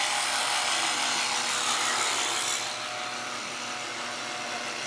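Electric shearing handpiece running steadily as its blades cut through fleece, with a motor hum under a rough hiss. The hiss eases a little a bit past halfway.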